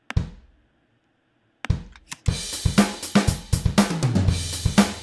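Sampled drum kit in Native Instruments Battery, triggered from MIDI. A single hit comes at the start and another a little before halfway. Then a programmed beat of kick, snare, hi-hat and cymbal plays, with a tom fill falling in pitch a little before the end.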